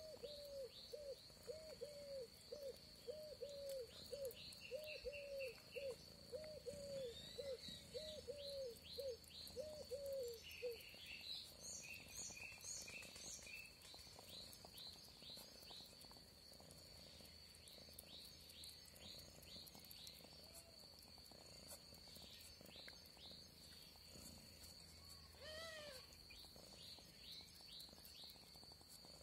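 Faint outdoor wildlife sounds: a steady high-pitched insect trill, scattered bird chirps, and for the first ten seconds or so a rapid series of short low hooting calls, about two a second.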